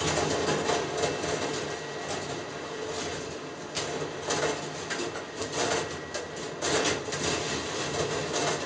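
Balls rolling and rattling along the copper tracks of a rolling ball sculpture, with a steady rumble and frequent small clicks and clacks as they pass through its switches and mechanisms.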